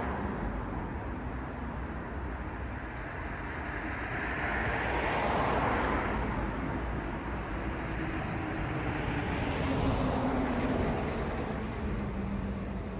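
City street traffic: cars passing one after another, the tyre and engine noise swelling and fading twice, with a low engine note dropping in pitch as one vehicle goes by.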